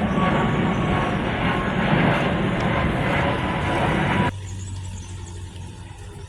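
Loud, steady city traffic noise that cuts off abruptly about four seconds in, leaving a much quieter background.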